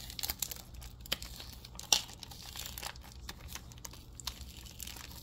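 Thin packaging wrap crinkling and tearing as a boxed notebook is unwrapped by hand, with irregular crackles, the sharpest about two seconds in.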